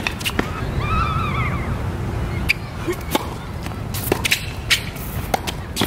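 Tennis rally on a hard court: racquet strings striking the ball and the ball bouncing, heard as a series of sharp pops, with a short squeak about a second in over a steady low rumble.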